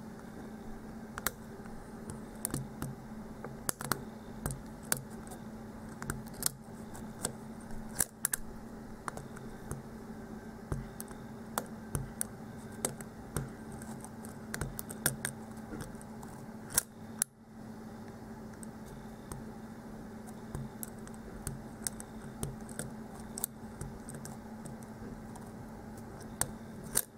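Steel lock pick working the pins of a pin-tumbler lock cylinder under tension: irregular small metallic clicks and light scraping as the pins are lifted and set one at a time. A steady low hum runs underneath.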